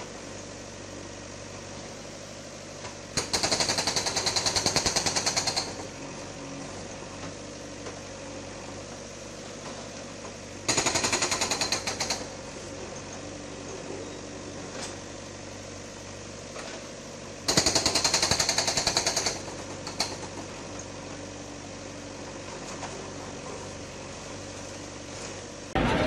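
Hydraulic breaker on a JCB backhoe hammering concrete in three bursts of rapid strikes, each a couple of seconds long, with the machine's engine running steadily in between.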